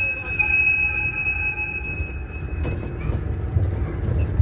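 Miniature ride-on train rolling along its track with a low rumble, and a high steady squeal that stops about three seconds in.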